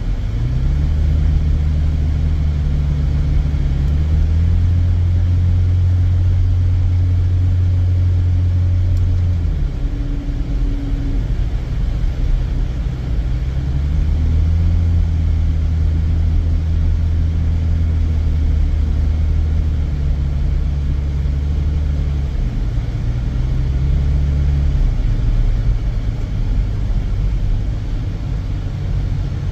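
Car driving on a highway, heard as a steady low rumble of engine and road noise. The low engine note shifts up and down in steps a few times, about 4, 9, 14, 22 and 25 seconds in.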